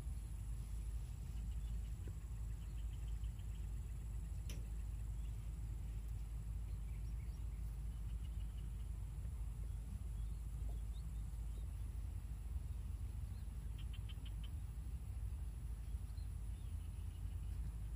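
Open-field ambience: a steady high insect drone over a low, even rumble, with short rapid chirping trills now and then. One sharp click sounds about four and a half seconds in.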